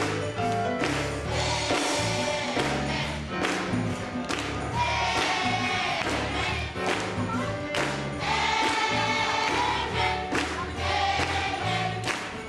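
A choir singing to a musical accompaniment with a steady bass line, in the manner of a Christmas carol.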